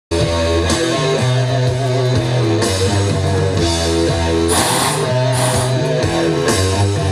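Rock music with guitar over a sustained bass line, starting abruptly after a brief silent cut.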